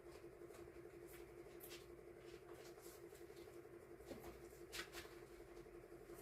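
Near silence over a steady low hum, with faint scattered ticks and rustles of paper stickers being handled and sorted; the clearest tick comes about five seconds in.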